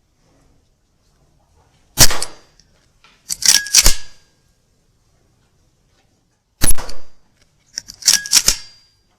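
Weihrauch HW100 .22 pre-charged pneumatic air rifle fired twice, about four and a half seconds apart. Each shot is followed about a second later by a short run of metallic clicks with a brief ring as the side-lever action is cycled to load the next pellet.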